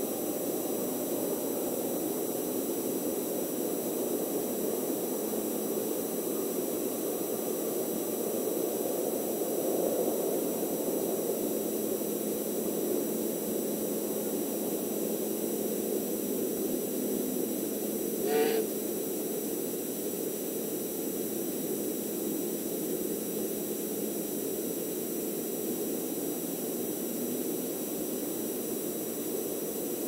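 Steady rushing outdoor background noise through a wildlife camera's microphone, with a thin high electronic whine throughout. One brief pitched call comes about eighteen seconds in.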